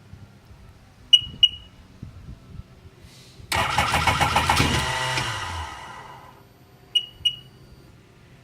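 Two short electronic beeps from a 2002 Sea-Doo GTX 4-TEC, then the starter cranking its Rotax four-stroke engine in a fast rhythmic churn for about two seconds, winding down without the engine catching, then two more beeps. The engine won't start.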